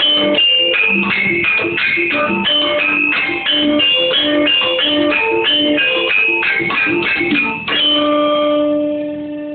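Keyboard music playing a quick run of melodic notes, then settling on one held chord about three-quarters of the way through that fades out at the end.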